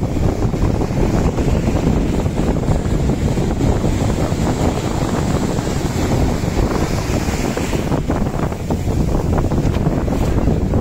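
Wind buffeting the microphone, loud and steady, over waves breaking on the shore.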